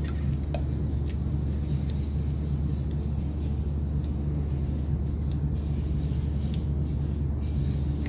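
A steady low machine hum, with a few faint ticks.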